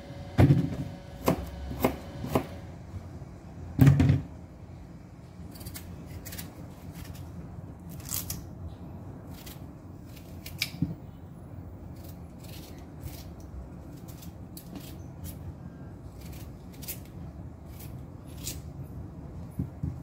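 Knife cutting chayote on a plastic cutting board: several sharp knocks in the first four seconds, then light clicks every second or so as the chayote is peeled and sliced in the hand with a small knife.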